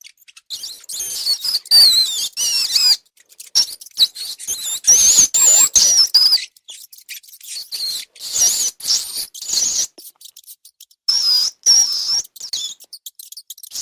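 Rats squeaking: many short, high-pitched squeaks that waver up and down in pitch, coming in quick runs with brief pauses between them.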